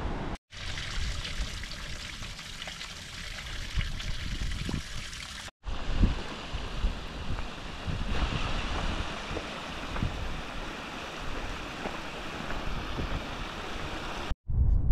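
Running water of a stream: a steady rush with small splashes and ticks, cut off for an instant at two edits.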